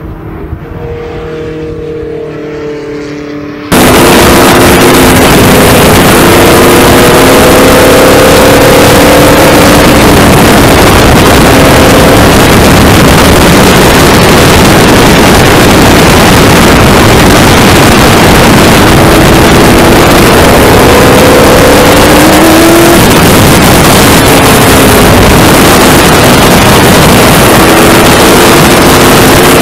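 Formula 5000 race car's V8 engine at speed. It is heard first from trackside as the 1968 LeGrand Mk7 drives by, then, about four seconds in, from an onboard camera. There the engine and wind noise are loud and overloaded, with the engine pitch rising and dropping again and again.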